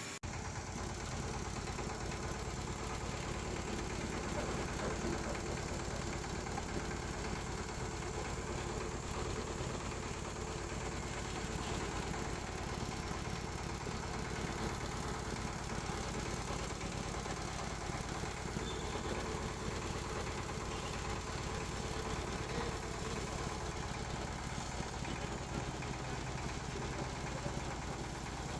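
Floating fish-feed pellet extruder machine running steadily: an even mechanical hum with no change in speed.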